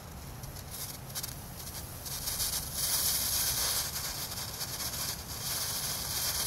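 Potassium nitrate and sugar rocket motor hissing as a match lights its propellant: a steady fizzing hiss that builds over the first two seconds and then holds. It is burning slowly instead of firing, which the builders put down to the propellant being wet.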